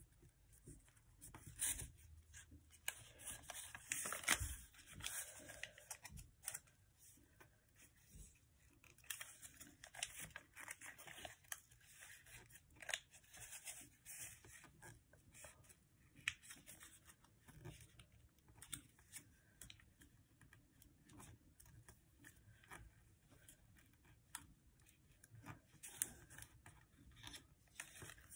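A sheet of paper being folded and creased by hand: faint, irregular crinkles, rustles and scrapes, loudest about four seconds in.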